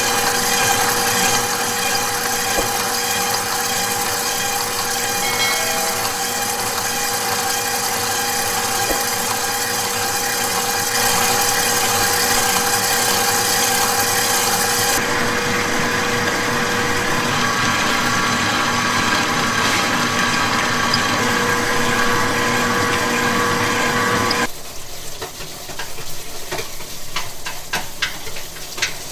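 KitchenAid Professional stand mixer running steadily, its wire whisk beating chocolate batter in a stainless steel bowl, with a steady motor whine. About 24 seconds in the mixer sound cuts off, giving way to quieter irregular popping and ticking from a pot of chocolate liquid bubbling.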